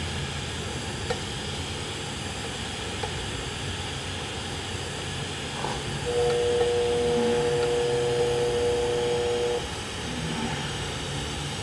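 TIG welding arc hissing steadily during the hot pass on a 6-inch schedule 40 pipe, with the cup walked along the joint. From about six to nine and a half seconds a steady whine joins it as the welding positioner's motor rolls the pipe forward.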